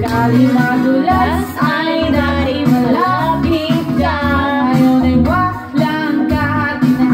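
A song playing: a woman's singing voice carrying a melody with sliding, wavering notes over an instrumental backing.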